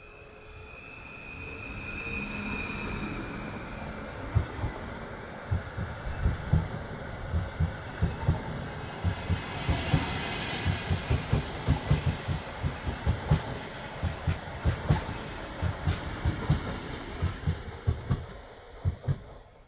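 PKP Intercity ED160 (Stadler FLIRT) electric multiple unit pulling away past the platform. At first there is a steady whine from the electric drive. After about four seconds come repeated rhythmic thumps of the wheels over rail joints as the carriages roll by, and these fade as the train draws away near the end.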